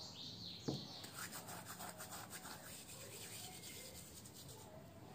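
Dried thyme leaves rubbed and crumbled between the palms over a bowl of flour, a dry rasping rustle that runs for about four seconds. A single sharp knock comes just before the rubbing starts.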